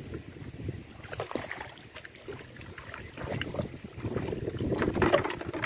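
Shallow water sloshing and splashing as a person wades and handles plastic bottle traps, with scattered short knocks of hollow plastic against plastic. It grows louder and busier about four seconds in.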